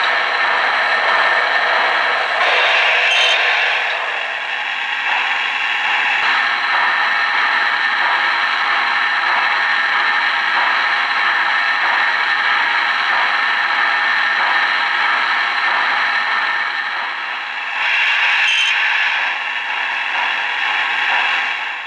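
O-gauge model train running on three-rail track: a steady clatter and rattle of wheels and running gear. It swells briefly twice, a few seconds in and again near the end.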